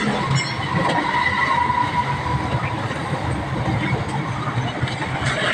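A gas torch flame burning with a steady noise as filler rod is melted onto a radiator's filler neck.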